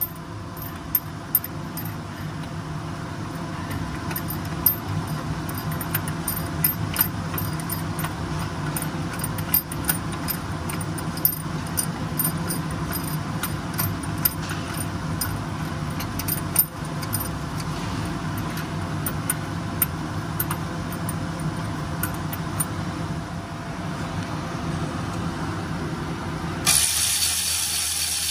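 Metal clinks and clicks from a socket on an extension bar as bracket bolts are undone under a car, scattered irregularly over a steady low hum. About 27 seconds in, the hum gives way to a steady hiss.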